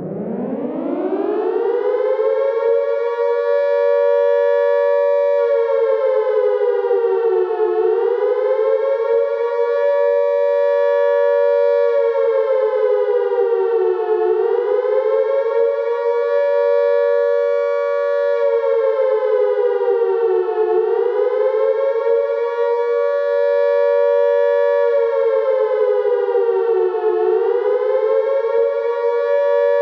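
British-style World War II air raid siren winding up in pitch over the first couple of seconds, then wailing up and down about every six and a half seconds, two close notes sounding together. The rising-and-falling wail is the air raid warning signal.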